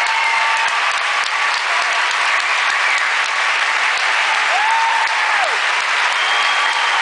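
Large theatre audience applauding steadily: the closing applause of a stage show. One voice calls out above the clapping a little past the middle.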